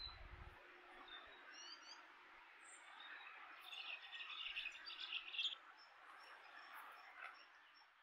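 European goldfinches calling: scattered short high chirps, with a burst of rapid twittering from about three and a half to five and a half seconds in, the loudest part. A steady background hiss runs underneath.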